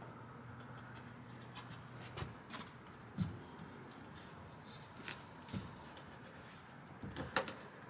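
A few light, scattered knocks and taps as a plywood framing strip is handled and pressed into place against the van's insulated wall, the clearest about three seconds in and a cluster near the end.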